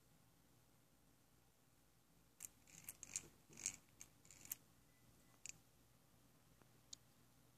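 Small plastic and brass gear train of a home-made SCARA plotter arm clicking as its stepper motors drive it: a quick run of sharp ticks about halfway through, then two single clicks, over a faint steady hum.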